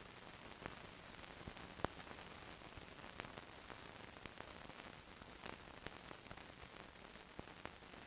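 Faint steady hiss with scattered crackling clicks and one louder pop a little under two seconds in: the surface noise of an old film soundtrack, with no music or voice.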